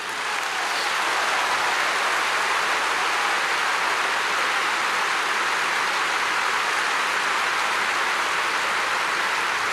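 Large stadium crowd applauding: dense, steady clapping that swells over the first second and then holds.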